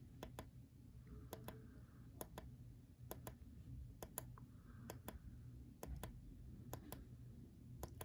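Small tactile pushbutton on a DE0-CV FPGA board, the KEY0 clock key, clicking faintly as it is pressed and released, nine times at about one press a second. Each press clocks the T flip-flop counter on to its next number.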